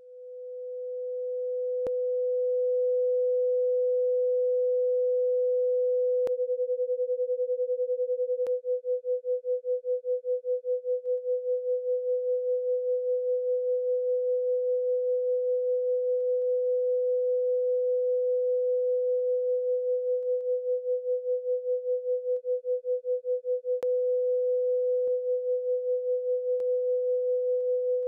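A pure 500 Hz sine tone from a BeeOne software oscillator fades in over the first few seconds. From about six seconds in it pulses evenly at about five beats a second: amplitude modulation that makes it an isochronic brain-entrainment tone. The pulsing grows deeper and shallower several times as the modulation depth is changed, with faint clicks at a few of the changes.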